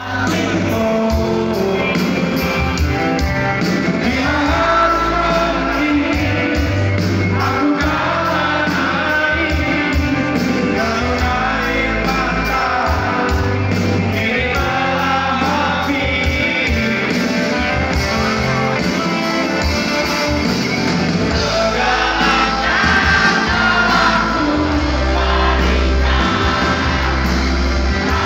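Live rock band playing loud, with electric guitars, drums and singing.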